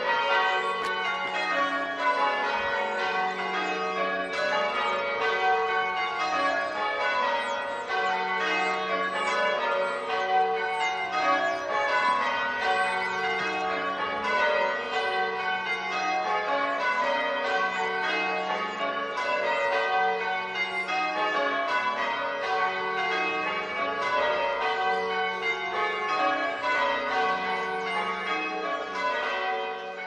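Church bells being rung in changes: a continuous, even run of bell strikes from the tower's ring, the deepest bell (the tenor) sounding about every two and a half seconds.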